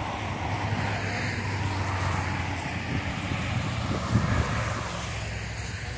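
Highway traffic below: a steady rush of tyre and engine noise with a low hum, swelling through the middle and easing near the end. A brief low thump about four seconds in.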